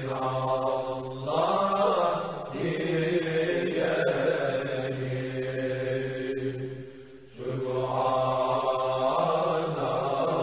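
Religious chanting in long, held melodic phrases, with a short break for breath about seven seconds in.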